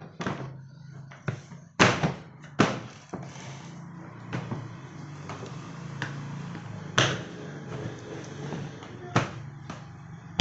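Irregular knocks and clunks of a plastic trolley toolbox being handled, with a few sharper bangs, the loudest about two seconds in and about seven seconds in.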